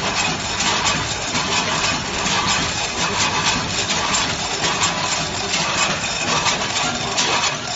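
Multihead weigher running, with corn kernels rattling steadily across its stainless steel feed pans and into the weigh hoppers. It makes a dense hiss of many small clicks.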